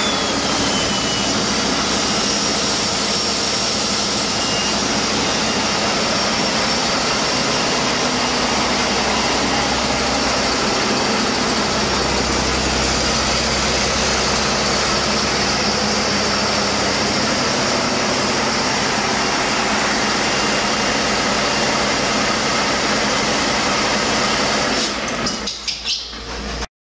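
Cummins X15 inline six-cylinder diesel engine on a test stand, running steadily. A high whine falls in pitch during the first second. Near the end the sound turns uneven, then cuts off abruptly.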